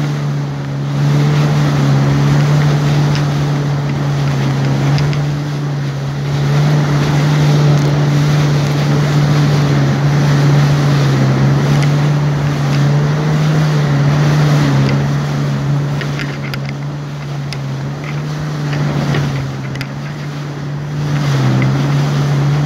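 Jet ski engine running steadily at cruising speed, with the hiss of water spray and wind. The engine note eases slightly for a moment a few seconds before the end.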